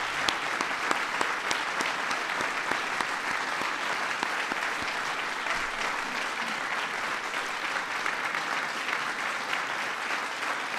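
Large audience applauding, many hands clapping at a steady level.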